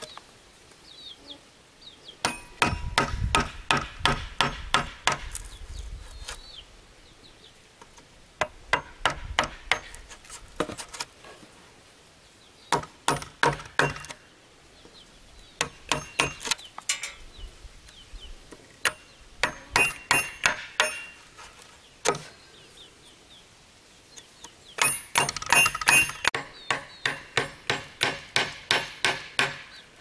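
Hammer blows in about six bursts of quick strikes, several a second, each with a bright metallic ring, with short pauses between bursts.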